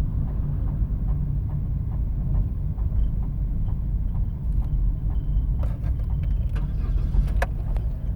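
Opel Astra with an automatic gearbox running: a steady low rumble with faint ticks about twice a second. A few sharper clicks and rattles come in the second half. This is the car whose automatic is making noises.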